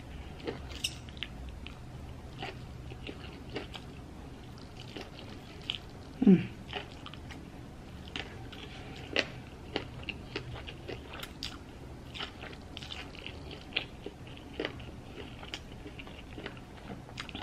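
Close-up mouth sounds of eating: noodles sucked up off a fork and chewed, with many small wet clicks and smacks. One louder falling sound comes about six seconds in.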